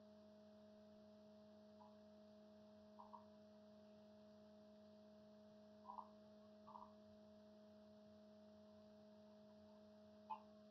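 Near silence: a faint steady hum, with a few faint short blips about 3, 6, 7 and 10 seconds in.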